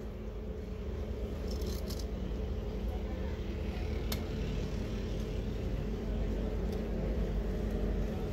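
Steady low rumble of street and traffic noise. About four seconds in comes a single sharp knock, a knife striking the wooden chopping block as a fish is filleted.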